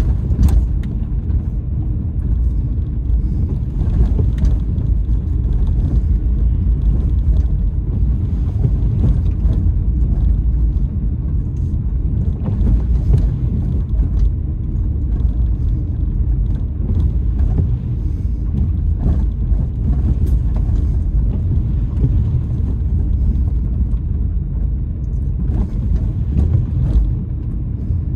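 Car cabin road noise: a steady low rumble of tyres and engine on a rough, potholed unpaved road, with scattered brief knocks and rattles as the car goes over bumps.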